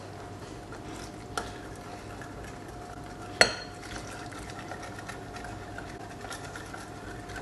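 Cake batter being stirred and whisked in a bowl, with soft scraping throughout. A sharp clink of utensil or glass against the bowl comes about three and a half seconds in, over a faint steady hum.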